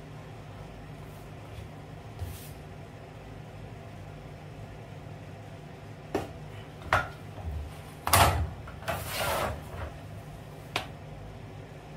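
Cutting and handling a vinyl deco tile with a utility knife and steel ruler: a low steady hum with little else at first, then a few sharp clicks and knocks, the loudest about eight seconds in, a short scraping rustle just after, and a last click near the end.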